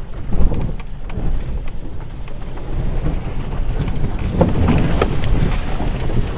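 Cabin rumble of a 2011 Jeep Patriot driving slowly over rough, muddy ground, with the body and suspension jolting. A couple of sharp knocks come about four and a half and five seconds in.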